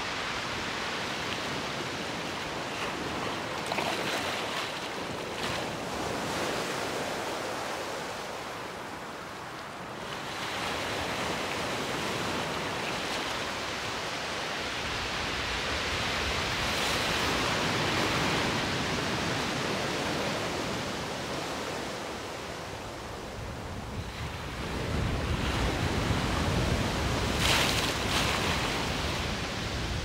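Recorded rainstorm ambience: a steady hiss of rain that swells and ebbs, with a low rumble of thunder building over the last few seconds.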